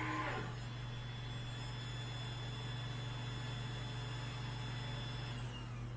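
Genmitsu PROVerXL 4030 V2 CNC router standing idle after a carve: a steady high whine over a low hum, with the whine cutting off about five and a half seconds in, as if the spindle has been switched off.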